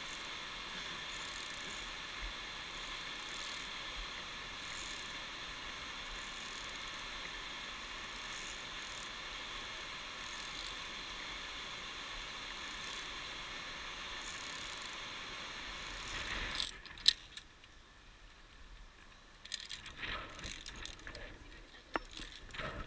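Steady rush of a whitewater mountain stream far below, which stops abruptly about 16 seconds in. A quieter stretch follows, with scattered sharp metallic clicks and clinks of via ferrata carabiners on the steel safety cable.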